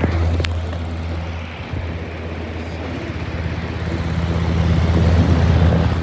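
Lasko Cool Colors box fan running, a steady low motor hum under the rush of air from its blades, growing louder over the last couple of seconds. A single sharp click sounds just under half a second in.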